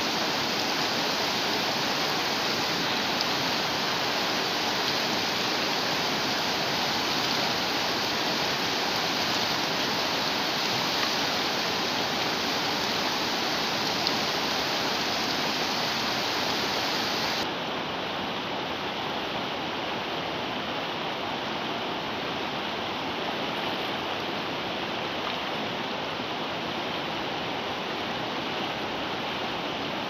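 Steady rush of a fast, swollen river pouring over and around boulders, the water rising in spate. About two-thirds of the way through, the sound suddenly turns slightly quieter and duller, losing its upper hiss.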